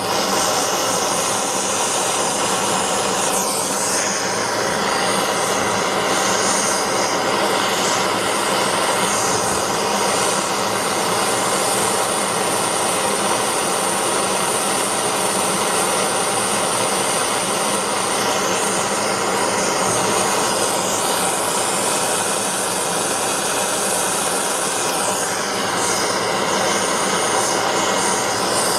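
Gas blowtorch running steadily with a loud, even rush of burning gas, its flame heating a brass joint for soldering.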